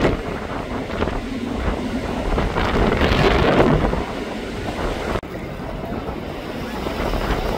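Wind buffeting the microphone over the distant roar of a twin-engine jet airliner climbing out after takeoff. About five seconds in the sound cuts suddenly to a quieter wind rush.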